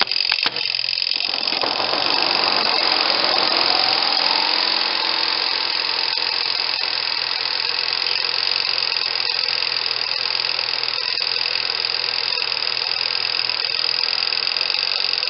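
Spin tub motor of a portable twin tub washing machine starting with a click, spinning up with a rising whine over a few seconds, then running at a steady speed to spin soapy water out of the clothes before the rinse.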